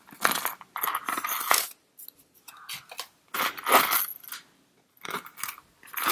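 Gold-tone metal hardware of a Louis Vuitton Monogram key pouch being handled: the key clasp and its chain clinking and the zip rattling, in several short bursts.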